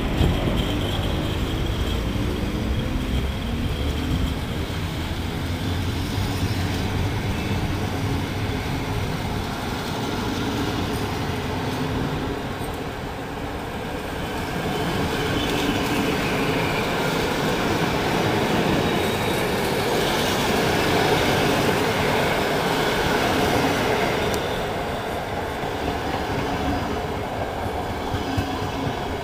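Coaches of a departing passenger train rolling past on the track: a continuous rumble of wheels on rails that swells about halfway through.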